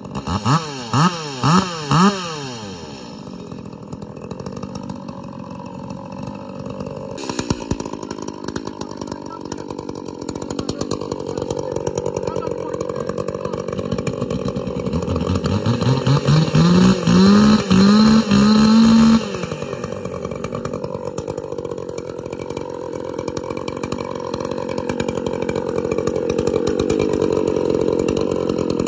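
Ported 43cc Echo two-stroke chainsaw revved in four quick throttle blips at the start, then idling. About halfway through, a chainsaw climbs in steps to full throttle, holds there for a few seconds, then cuts off suddenly, and idling carries on to the end.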